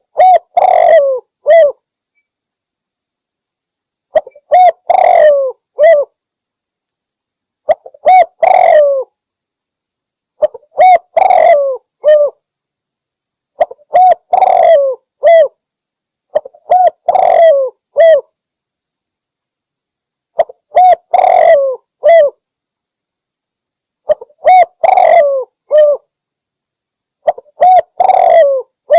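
Spotted dove (Javanese derkuku) singing its cooing song: a short phrase of a few coos, repeated about every three seconds, nine times.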